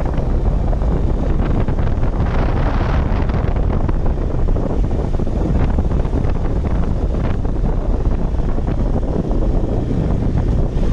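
Heavy wind buffeting on the microphone of a moving motorcycle, with the engine and road noise underneath. A brighter rush of wind about two seconds in.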